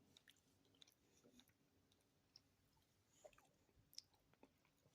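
Near silence, with a few faint, scattered clicks of a person chewing food.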